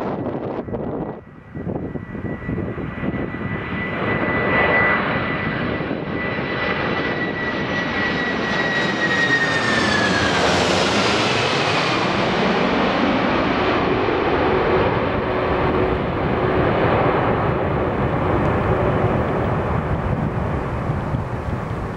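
Boeing 747-400 freighter's four turbofan engines passing low overhead on landing approach. A steady high fan whine drops in pitch as the jet passes overhead about ten seconds in, and broad jet noise carries on as it moves away.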